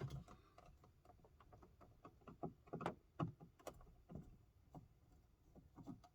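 Faint, irregular clicks and taps of a screwdriver and wires being handled at a small car amplifier's terminals as speaker wires are disconnected.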